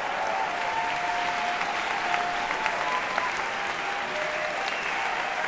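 Concert audience applauding steadily in a theatre hall.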